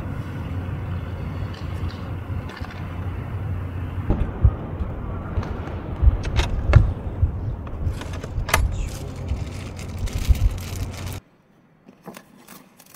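Steady low rumble of wind buffeting the microphone, with scattered clicks and knocks of gear being handled at an open car. The wind cuts off abruptly about eleven seconds in, leaving a few faint clicks of hands on gear pouches inside the car.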